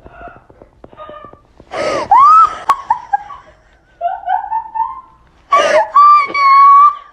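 A person's voice: three sharp, noisy intakes of breath, each followed by high-pitched cries that rise in pitch. The last cry is held steady for about a second.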